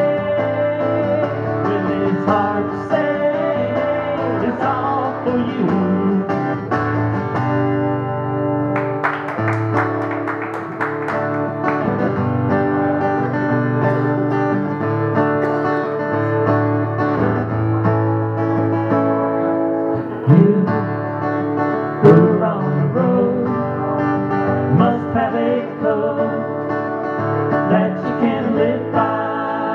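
Live guitar playing with singing: a song performed at the microphone.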